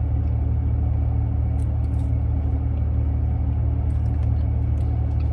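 Steady low rumble of an idling car engine, heard inside the cabin, with a few faint soft clicks.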